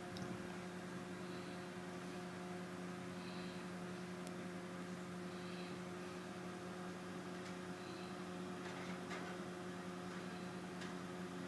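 Steady low electrical hum with faint hiss and a few faint ticks.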